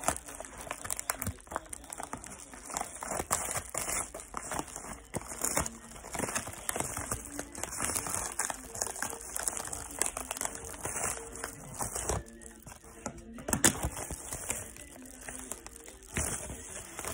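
Plastic packaging crinkling and rustling in irregular bursts as a plastic mailer and its bubble-wrap lining are handled and opened, with faint music underneath.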